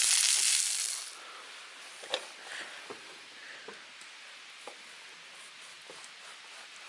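Meat sizzling loudly in a cast-iron skillet, dropping off sharply about a second in; after that a quiet hiss with sparse pops and crackles from the campfire.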